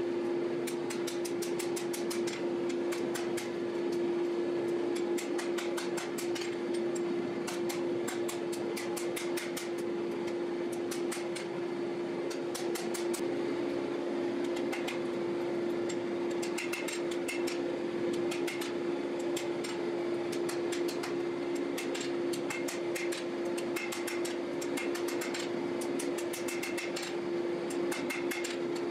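Hammer blows on a red-hot steel knife blade lying on an anvil: runs of sharp strikes, a few a second with short pauses, as the blade is forged to shape. A steady hum runs underneath.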